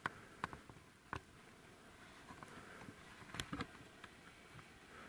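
Faint steady hiss with a scattering of small sharp clicks and taps, a short cluster of them about three and a half seconds in.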